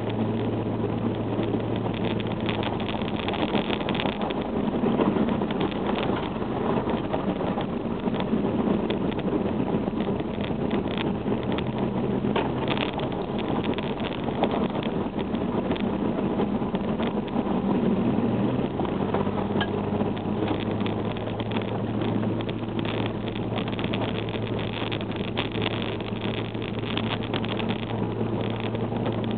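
SUV engine running steadily while it drives along a rough dirt track, with tyre and road noise and frequent small knocks and rattles from the bumps, heard from inside the cabin. The engine note rises a little about three seconds in and drops back near twenty seconds.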